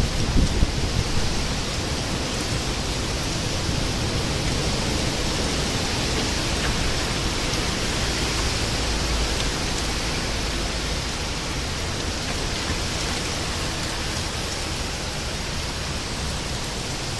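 Storm of strong wind and heavy rain: a steady, dense rushing hiss, with a few louder gusts in the first second.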